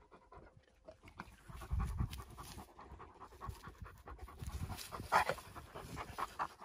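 Dog panting hard and fast, out of breath after a long run.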